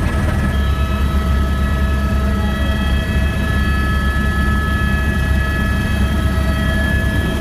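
Helicopter cabin noise in flight: a steady, loud low rotor-and-engine drone with a constant high whine on top.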